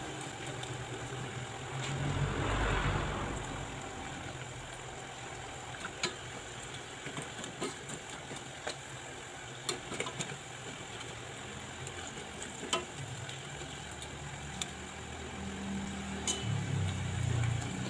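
Cauliflower florets deep-frying in oil in a stainless steel pot: a steady sizzle that swells briefly about two seconds in, with scattered light clicks of metal tongs against the pot as the pieces are turned while they brown. A low hum runs underneath.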